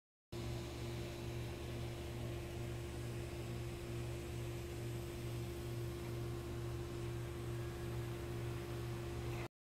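A steady hum with a constant higher tone over it and a hiss, cutting in and cutting off abruptly.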